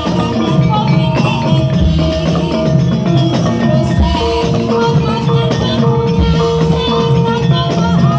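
Live traditional Javanese ensemble playing dance music: hand drums keep a steady beat under jingling percussion and metallophones, with long held melody notes.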